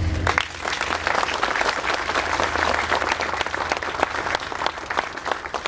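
Crowd applauding: many hands clapping, starting just after the start and thinning out near the end.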